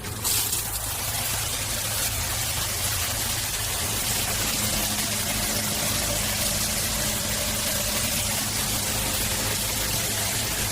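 Water running hard and steadily, switched on abruptly, over a low steady hum.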